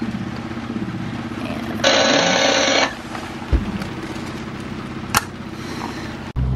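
An electronic alarm on the boat's electrical panel sounds once for about a second, followed by two sharp clicks.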